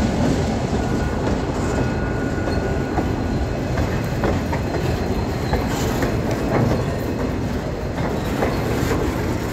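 Diesel-hauled freight train rolling past at close range, with locomotive VL353 at its head: a steady heavy rumble, broken by scattered clicks of the wheels over the track.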